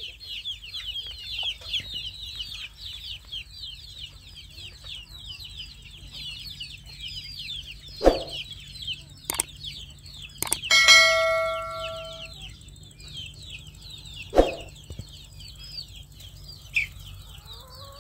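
Birds chirping constantly, high and rapid, with a few sharp knocks. About eleven seconds in, metal cookware is struck once, giving a loud ringing clang that fades over a second or so.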